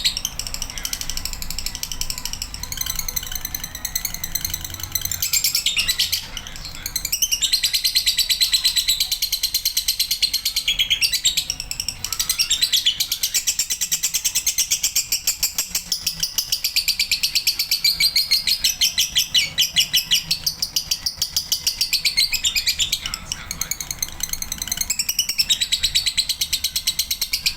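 Male lovebird singing a long, nearly unbroken run of rapid, high-pitched chattering song. This is the long-duration ('durasi') song that lovebird keepers prize.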